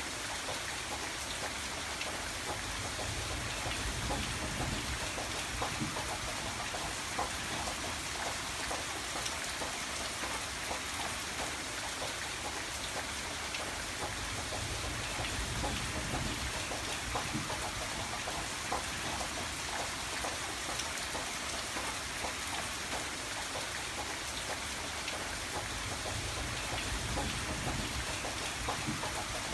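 Steady rain falling, with dense patter of drops on surfaces and a low rumble that swells and fades a few times.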